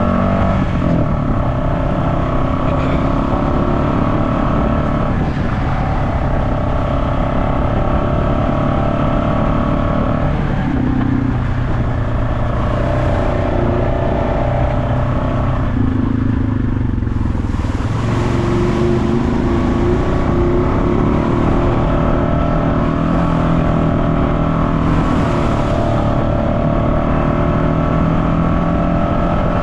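Off-road vehicle's engine running continuously while trail riding, its pitch stepping up and down several times with throttle and gear changes.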